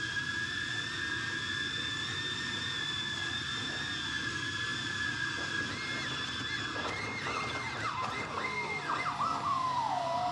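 FPV quadcopter's brushless motors whining at a steady high pitch, heard through the onboard GoPro's own audio. About seven seconds in, the pitch swings quickly up and down several times with throttle changes, then drops and holds as a steady lower tone near the end.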